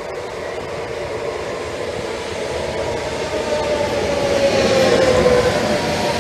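Electric commuter multiple unit running along the platform, its rumble growing louder as it comes close, with a whine of several tones that slowly falls in pitch.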